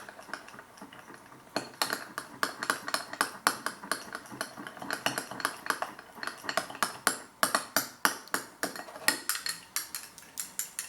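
A spoon stirring a thick tomato-and-mayonnaise seafood sauce in a dish, clicking against the dish in a fast, steady run of clinks. The clinks are sparser and quieter for about the first second and a half.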